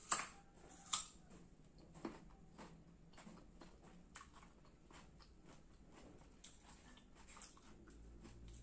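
Close-up crunching of a crisp green Indian mango slice being bitten and chewed: two sharp crunches in the first second, then softer crunches as the chewing goes on.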